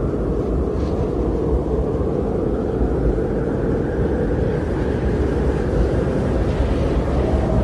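Strong blizzard wind blowing in a steady low rush, swelling and easing slowly.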